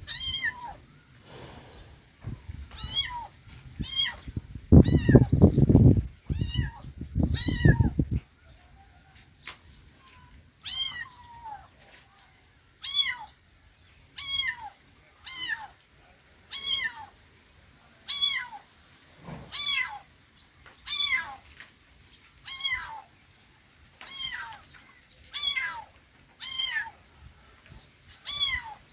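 Kitten meowing over and over: short, high meows that rise and then fall, about one every second and a half. For the first several seconds they are mixed with a low rumbling noise.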